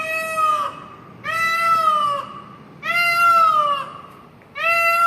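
Peacock calling: four loud calls about a second and a half apart, each about a second long, holding one pitch and dipping at the end. The speaker puts the calling down to mating season.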